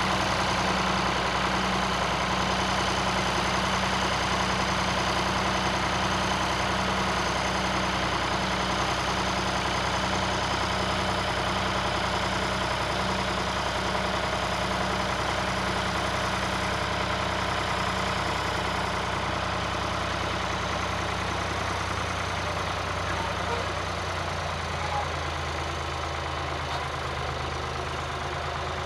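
Tractor engine running steadily, easing slightly and changing note near the end.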